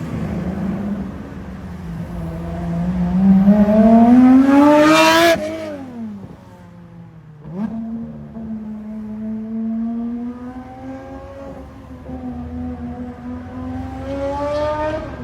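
Lamborghini Huracán STO's naturally aspirated V10 engine revving: the pitch climbs steadily to a loud high-rpm peak about five seconds in, then falls away. A single sharp pop comes about two seconds later, after which the engine note rises slowly again and climbs once more near the end.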